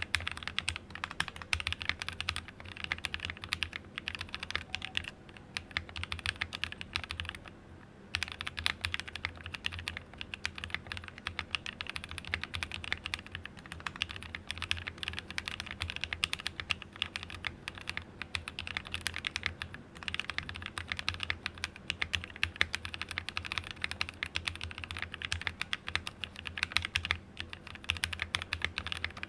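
Fast, continuous typing on a mechanical keyboard with lubed NovelKey Cream linear switches in a plateless build, keys bottoming out in rapid clicks. Typing breaks off briefly twice, about a third of the way in and again past the middle.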